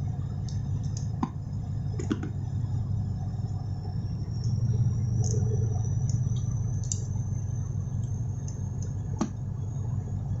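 Steady low rumble of background machinery. A few faint clicks come from a thumb-pump oil can as lube oil is squirted into a fuel valve, and from small metal parts being handled.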